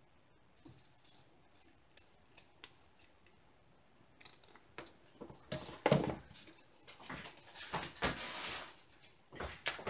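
Scissors snipping a trimmed strip of diamond-painting canvas with a few light clicks, then, from about four seconds in, the cut-off strips rustling and sliding as they are gathered up off the cutting mat.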